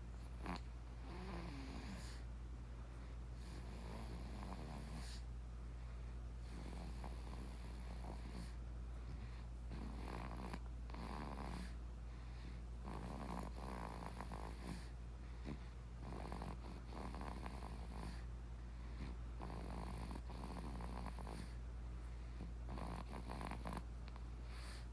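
An eight-month-old baby snoring, with a rasping snore on each breath roughly every three seconds, over a steady low hum.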